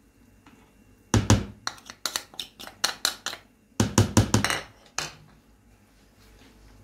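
Metal spoon tapping and scraping against a small ceramic bowl and a plastic mixing bowl to knock out wheat flour: a quick run of clinks and knocks from about a second in to about five seconds in, loudest near the start and near four seconds.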